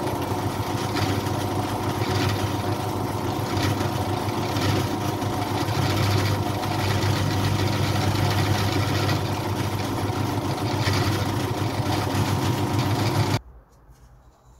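Bench drill press motor running steadily with a polishing bob spinning in its chuck while a cut glass bottle is held against it to polish the rim. The sound cuts off suddenly about 13 seconds in.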